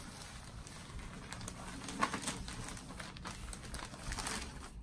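Clear plastic wrapping around a baby bassinet's mesh fabric seat crinkling and rustling as it is handled. The crackles come in irregular bursts, loudest about two seconds in and again near the end.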